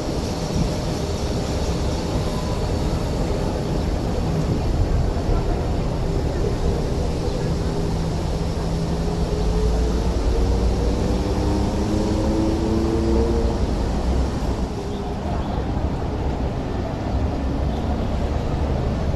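Fifth-generation Hong Kong Peak Tram funicular car rolling down the track and passing close by as it draws into a stop, with a steady rumble of wheels on rails. A whining tone glides upward for several seconds midway, then fades.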